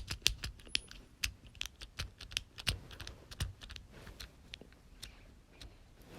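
Plastic light-switch toggle on a knockoff fidget cube flicked back and forth, giving light, quick clicks about three or four a second that grow fainter toward the end.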